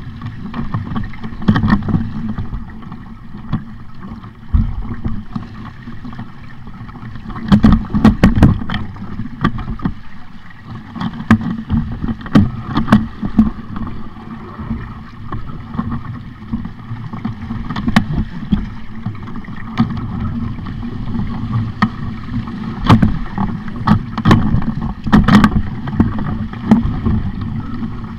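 Sailing dinghy under way: wind buffeting the microphone and water rushing along the hull, a steady loud rush broken by frequent sharp knocks and slaps.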